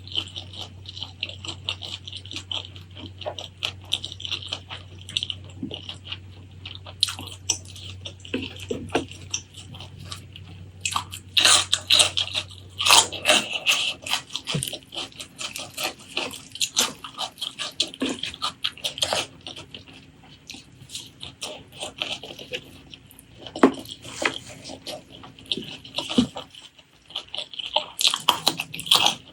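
Close-miked eating of spicy pork leg curry with rice: irregular wet chewing, smacking and sticky mouth sounds, busiest about halfway through and again near the end.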